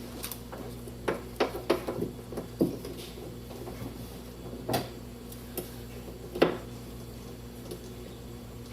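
Irregular plastic clicks and taps of wiring connectors and a harness being handled inside an open car door, over a faint steady hum.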